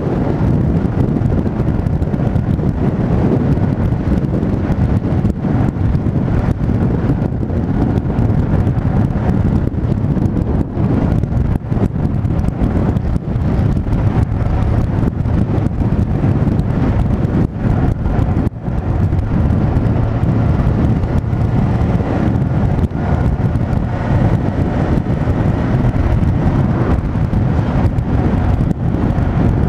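Steady wind rushing over the microphone of a camera on a moving motorcycle, with engine and road noise underneath.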